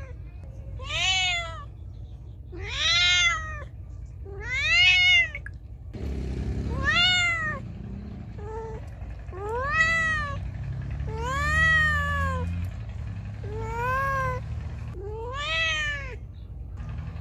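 Feral cat meowing loudly and repeatedly, about nine separate meows, each rising then falling in pitch, one every second and a half to two seconds. A low rumble sits underneath from about six seconds in.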